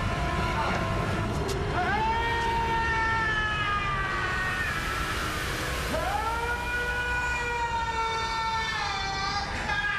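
A man screaming twice in long, drawn-out screams, each rising sharply and then slowly falling in pitch, over a steady low rumble of fire.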